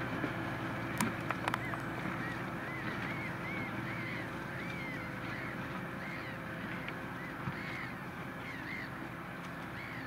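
New Holland T7.245 tractor's six-cylinder diesel running steadily under load while pulling a Lemken reversible plough, fading slightly as it moves away, with a few sharp clanks about a second in. From about two seconds in, a bird calls over it repeatedly, about twice a second.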